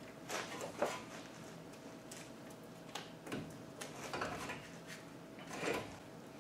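Irregular metal clinks, scrapes and rattles of a front brake caliper and its hardware being handled at the wheel hub as the caliper is taken off and hung out of the way.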